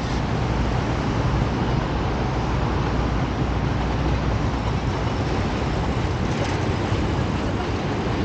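Steady city traffic noise mixed with low wind rumble on the microphone, recorded while cycling.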